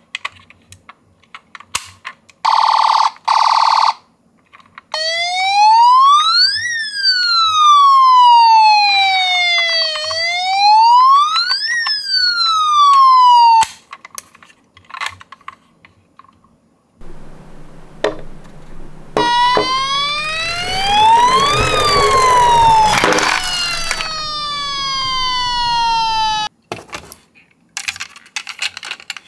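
Ambulance siren wailing in slow rising and falling sweeps, heard twice: first on its own, then over a rumbling, rattling noise. Before it, two short loud flat tones; between and after, light clicks and clacks from the small toy cars.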